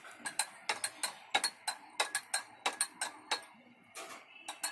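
Spoon stirring honey into a drink in a cup, clinking against the cup about three times a second, with a short lull near the end.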